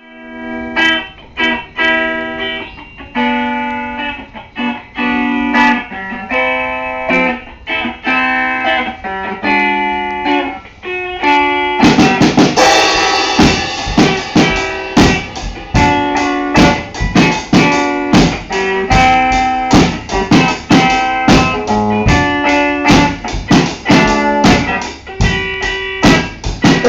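Instrumental intro of a live band song: guitar chords on their own, then the drum kit and full band come in about twelve seconds in, louder, with a steady beat.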